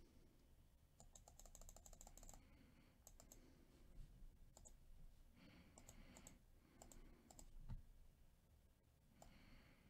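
Near silence with faint computer keyboard and mouse clicks: a quick run of key taps about a second in, then scattered single clicks.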